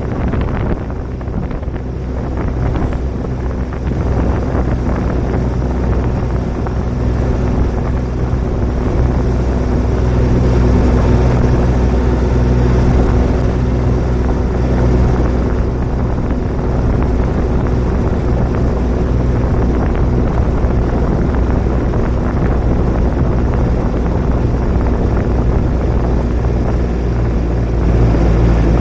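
Engine of a John Deere utility vehicle running steadily as it drives along, getting a little louder from about ten seconds in.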